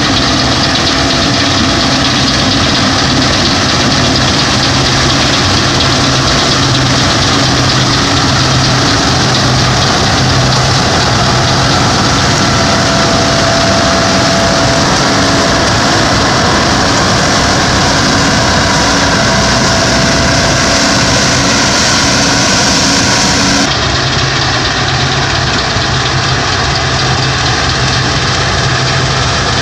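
Fortschritt E 516 B combine harvester working in standing grain: its diesel engine and threshing machinery run steadily under load. About two-thirds of the way through the sound turns slightly duller.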